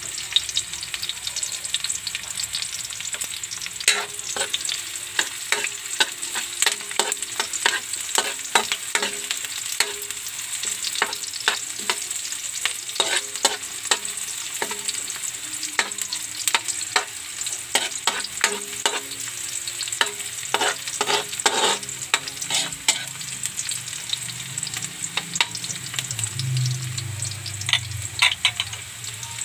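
Sliced onions and garlic sizzling in hot oil in a wok, with a spatula scraping and tapping against the wok as they are stirred to brown. The stirring strokes come thick and fast through the middle and thin out near the end, when a low hum comes in under the sizzle.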